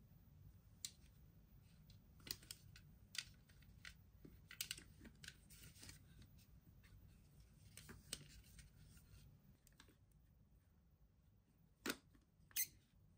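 Hands handling a toy and its packaging: scattered light clicks and short scrapes, with two sharper clicks near the end.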